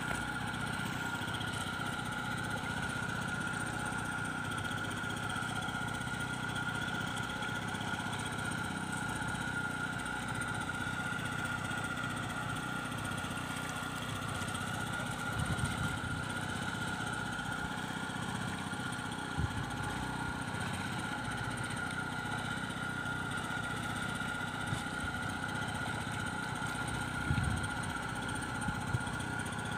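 Small engine running steadily at an even idle, with a few brief knocks about halfway through and near the end.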